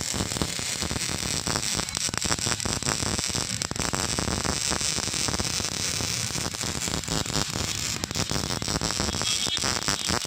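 Electric arc welding: the arc crackling and sizzling steadily with a dense run of fine pops.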